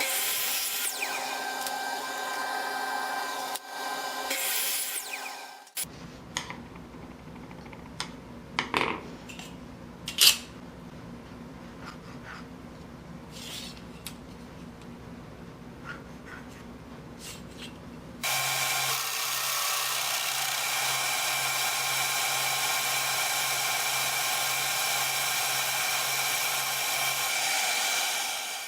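Power tools working wood: a motor runs with a steady hiss of cutting. It changes abruptly to a low hum with scattered knocks and clicks, then to another steady motor run with a high hiss.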